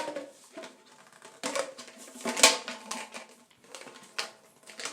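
Pipes being handled and pushed together, giving irregular clicks and knocks, the loudest about two and a half seconds in.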